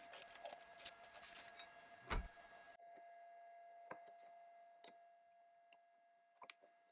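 Near silence with a few faint scattered clicks and one louder knock about two seconds in, over a faint steady tone.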